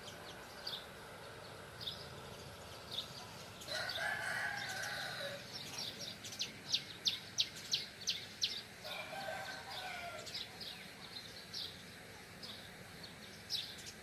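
A rooster crowing twice, each crow about a second and a half long, about four seconds in and again about nine seconds in. Small birds chirp in short, sharp high notes throughout, with a quick run of chirps between the two crows.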